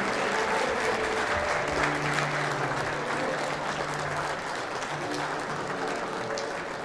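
Crowd of guests applauding steadily, slowly fading, with instrumental background music playing underneath.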